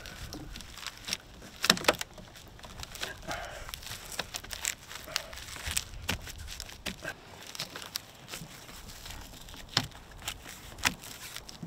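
Jeep soft-top fabric rustling and crinkling as it is pressed and tucked by hand into the roof rail, with a few scattered sharp clicks and snaps.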